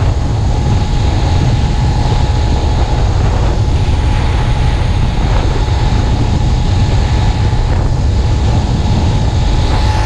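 Heavy wind rumble on the bike-mounted camera's microphone over the steady running of a motorized bicycle's small four-stroke engine at cruising speed, the engine still being broken in.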